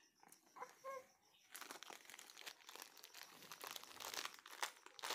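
A plastic snack-cracker wrapper crinkling as a baby grips and mouths it, with a short baby vocalisation about a second in.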